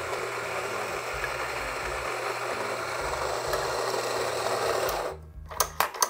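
Rancilio Rocky doser grinder's motor running steadily as it grinds espresso beans, cutting off suddenly about five seconds in. A few quick, sharp clacks of the doser lever follow near the end as the grounds are swept out into the portafilter.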